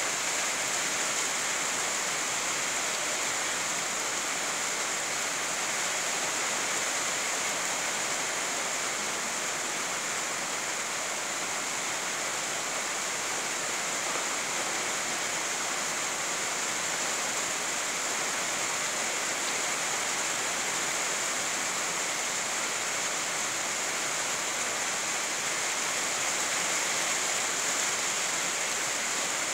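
Steady rainfall, an even hiss with no single drops or other sounds standing out.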